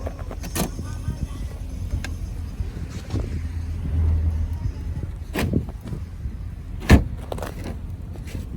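Sounds at a car: a steady low rumble with three sharp knocks, about half a second, five and a half and seven seconds in, the last the loudest.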